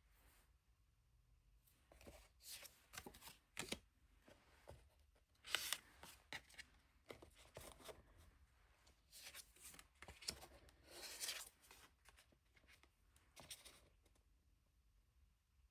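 Tarot cards being handled and shuffled: faint rustles and slides of card stock in short, scattered bursts.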